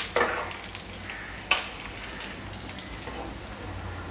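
Chicken pieces and curry leaves frying in hot oil with a steady sizzle. A few sharp knocks sound at the very start and again about a second and a half in.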